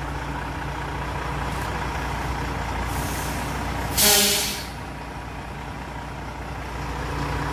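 A 440 hp Volvo FH truck's diesel engine idling steadily, with a short, loud burst of compressed-air hiss from its air brakes about four seconds in, fading over half a second.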